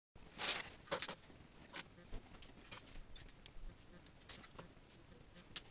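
Plastic Lego pieces clicking and rattling as a small Lego model is pulled apart by hand, with a scattering of sharp separate clicks and short rustles.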